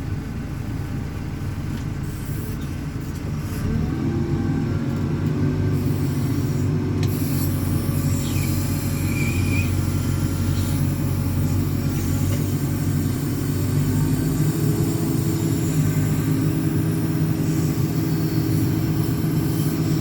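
Diesel engine of a JCB 4CX backhoe loader running, speeding up and getting louder about four seconds in, then holding steady at the higher speed.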